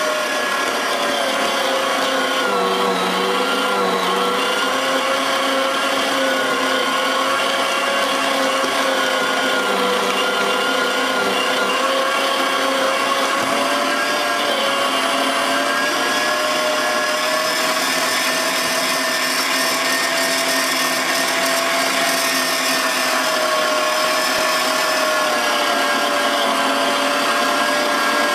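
TS110 electric meat grinder motor running under load while grinding raw meat, a steady whine whose pitch dips a little now and then and recovers as meat is pushed through.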